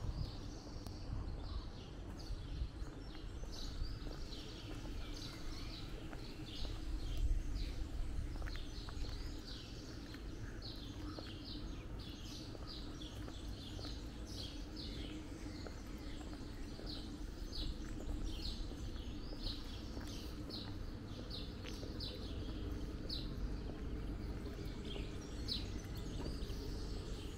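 Small birds chirping, many short high downward-sliding chirps repeating over and over, over a steady low background rumble.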